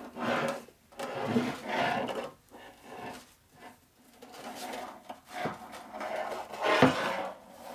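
A cloth rag rubbing the rust-preventive oil off a new stroker flywheel assembly for a Harley knucklehead, in rough scrubbing strokes. There are a few knocks as the heavy steel crank is shifted on the metal workbench; the loudest comes near the end.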